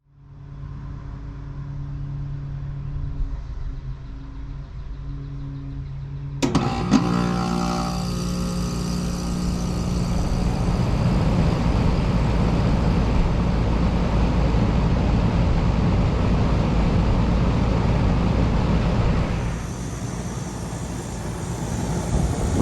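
2009 Amana Distinctions air conditioner starting up: a steady low hum at first, then about six seconds in a sudden jump into a loud, steady rushing of the fan and airflow over a low hum, which eases slightly near the end.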